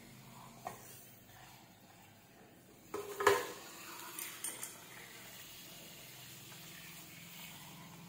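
A sharp knock about three seconds in, then a steady hiss of water running from a salon basin's hand-held sprayer into the sink.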